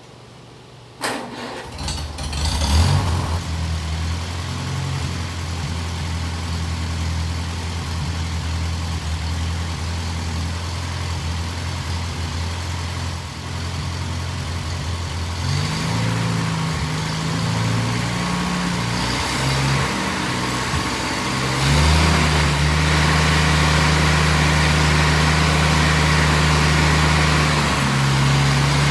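1952 International Cub's four-cylinder engine starting about a second in and then running steadily. Its speed changes around halfway and steps up, louder, a few seconds later, holding there to the end.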